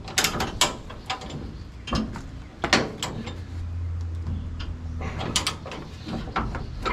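Hand-ratchet come-along being cranked under heavy tension to draw a seized hoist cylinder rod out of its fitting. It gives irregular sharp ratchet clicks and metal clanks, with a low hum for a second or two in the middle.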